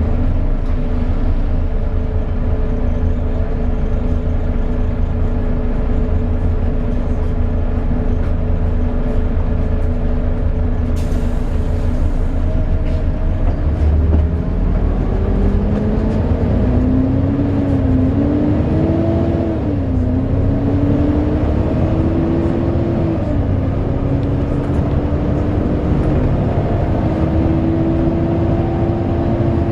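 Volvo B7TL double-decker bus running, its diesel engine rumbling under the whine of the cooling fan, the 'hoover' noise. The sound holds steady for the first half, then from about halfway the whine rises and wavers in pitch as engine speed changes, and settles at a higher steady pitch near the end.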